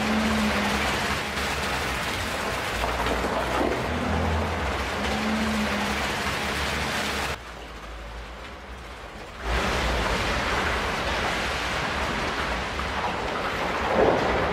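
Mercedes X350d pickup's tyres rolling over loose gravel: a steady gritty noise with a low rumble beneath it. It drops to a quieter hush for about two seconds midway, then comes back.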